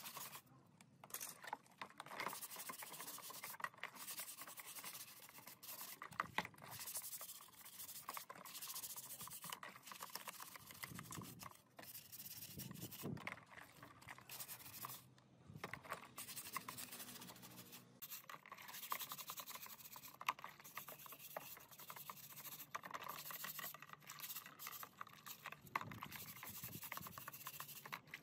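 Hand scrubbing brush working over plastic and metal laptop case parts in a tub of soapy water: rapid, irregular bristle strokes with wet rubbing and light splashing.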